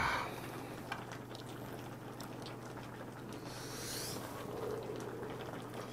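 Faint eating and handling sounds: utensils clicking as meat is worked off a pork bone above a steaming pot of pork-bone stew, with soft liquid sounds from the pot. A brief swish comes around the middle, over a steady low hum.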